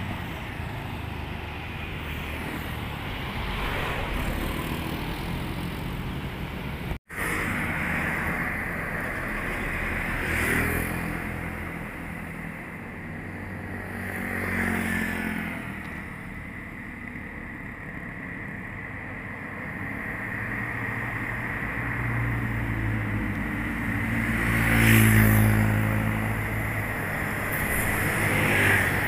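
Roadside traffic on a hill climb: cars, motorcycles and trucks passing one after another, each swelling and fading. Near the end a diesel truck engine grows loudest as a truck climbs toward the microphone.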